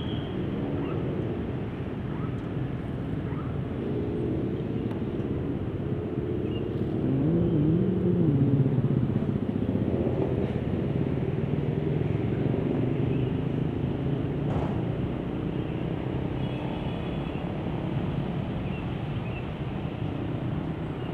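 Diesel locomotive engine running with a steady low rumble as it moves slowly away along station tracks. About seven seconds in it swells, with a brief rise and fall in pitch.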